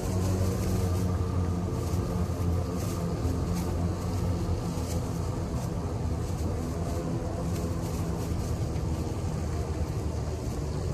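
Land Rover 4x4's engine running steadily on the move, with scattered knocks.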